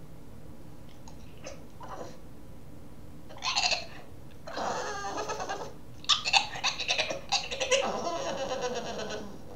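Boston terrier puppy making odd gremlin noises, strange goat-like vocal sounds he makes when he wants to play. A couple of faint ones come first, then louder bursts, the longest near the end.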